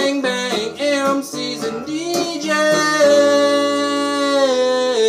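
A man singing over a strummed acoustic guitar. He ends on a long held note of about two seconds that stops shortly before the guitar fades.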